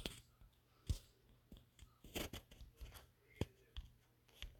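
Faint, irregular clicks of typing on a smartphone's touchscreen keyboard, about seven or eight separate taps.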